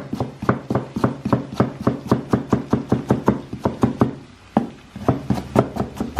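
Cleaver chopping fresh ginger on a wooden cutting board: quick, even knocks of the blade on the board, about four or five a second, with a short pause about four seconds in.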